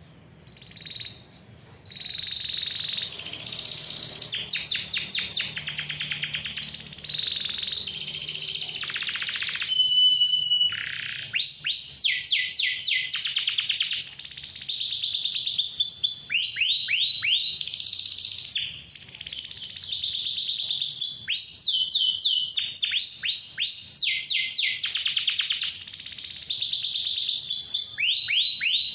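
Domestic canary in full song: a long, loud run of rapid high trills and rolls mixed with clear whistled notes, with a brief pause about ten seconds in.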